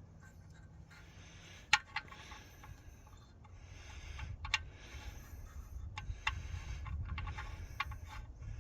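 A few sharp clicks and light metal taps, the loudest about two seconds in, while a new oil drain plug is handled and fitted by hand into the oil pan. A low rumble underneath grows louder in the second half.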